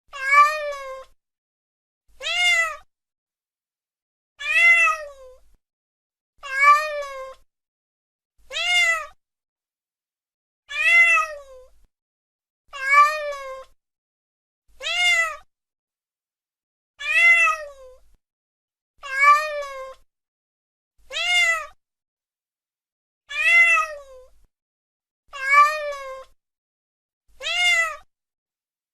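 Domestic cat meowing: the same drawn-out meow, rising then falling in pitch, repeated at an even pace of about one every two seconds, with silence in between.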